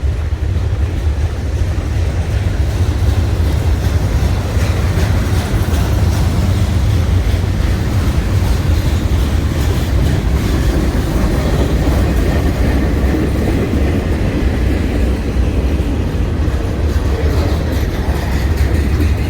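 Freight train cars rolling past, loud and steady with no break.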